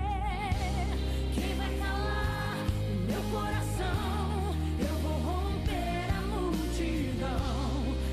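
Woman singing a gospel song over a backing track: held notes with wide vibrato and melismatic runs, with bass and sustained chords underneath and light percussion.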